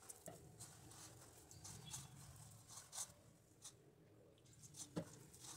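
Faint, irregular soft taps and squishes of a hand mixing and kneading spinach paratha dough in a steel plate.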